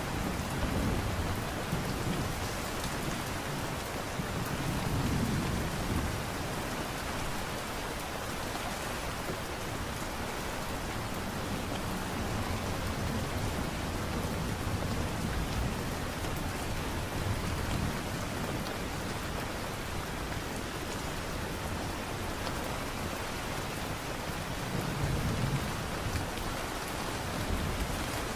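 Steady rain falling, an even hiss with patter, with a low rumble swelling up a few times underneath.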